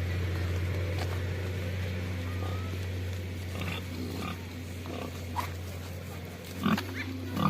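Pig grunting in short repeated grunts that begin about halfway through and grow louder and more frequent near the end, over a steady low hum.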